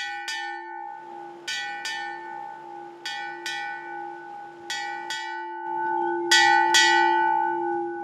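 Brass ship's bell on a sailing ship's deck, rung by its clapper lanyard in pairs of strokes: two quick strikes, a pause of about a second, five times over, each ring hanging on between strikes.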